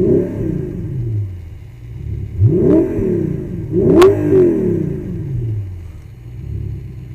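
Audi R8 4.2-litre V8 with a Stasis aftermarket exhaust, warm, blipped three times from idle: each rev climbs quickly and falls back to a steady idle. There is a sharp crack at the top of the third rev.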